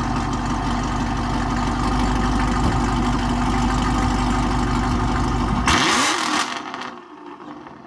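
Car engine idling steadily. A bit under six seconds in, a sudden loud burst of noise lasts under a second, and then the engine sound falls away.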